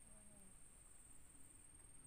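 Near silence: faint outdoor background with a steady high-pitched whine and a brief faint pitched sound in the first half second.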